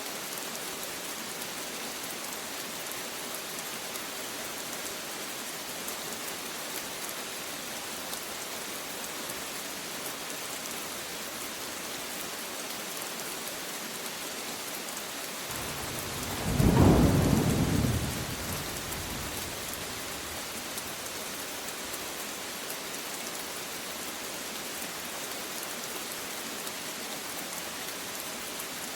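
Steady rain falling, with a single thunderclap a little past halfway that rumbles low for about two seconds and fades away.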